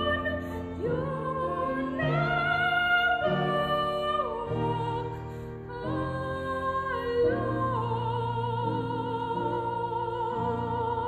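A woman singing in a classical, operatic style with vibrato, moving in steps between sustained notes. From about eight seconds in she holds one long note.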